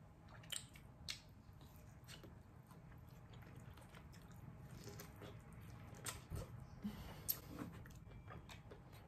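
Quiet, close-miked chewing of a person eating, with wet mouth sounds and several sharp clicks and smacks scattered through it.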